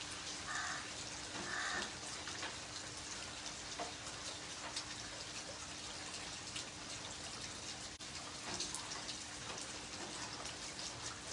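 Steady rain falling on wet concrete, a soft even hiss with the patter of single drops, and two short calls about a second apart near the start.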